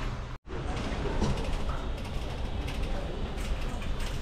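Busy store background noise: a steady hum with scattered rattling and clicking and faint voices, cutting out completely for a moment about half a second in.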